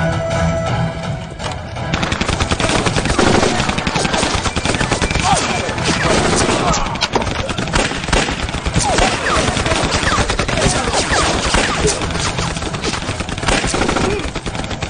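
Battle gunfire: after a short stretch of music, heavy, rapid automatic fire and single shots break out about two seconds in and keep up densely.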